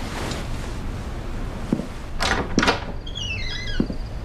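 A wooden door being opened: a thump and two short scrapes, then a creaking hinge squeal that falls in pitch in small steps, and a heavy footstep near the end.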